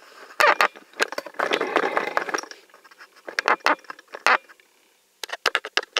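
Plastic sink drain parts being handled and fitted: a run of sharp clicks and knocks, with a stretch of scraping about one and a half to two and a half seconds in.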